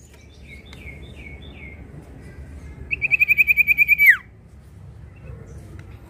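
Common iora (sirtu) singing: a run of about five short, down-curving whistled notes, then a loud fast trill of about a dozen notes that ends in a sharp downward slur.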